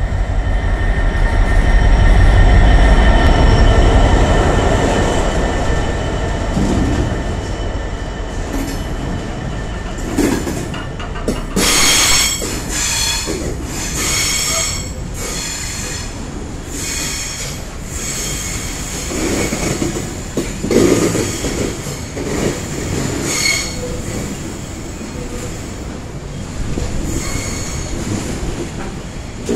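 Class 66 diesel-electric freight locomotive passing close by, its two-stroke V12 diesel engine loudest in the first few seconds. A long train of wagons loaded with rail then rolls past, with repeated bursts of high wheel squeal and clatter from about ten seconds in.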